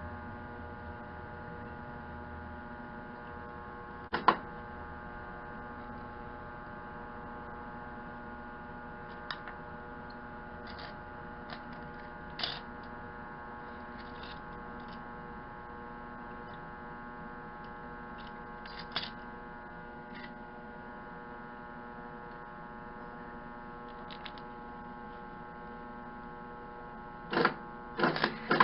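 Steady electrical hum from a semi-automatic wire-feed welder, broken by a few short, sharp bursts; the loudest is about four seconds in, and three come close together near the end.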